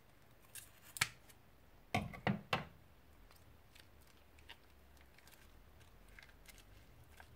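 Scissors snipping through the tip of a plastic piping bag filled with slime: a sharp snip about a second in, then three quick, heavier cuts about two seconds in. Faint soft ticks follow as the slime is squeezed out of the bag.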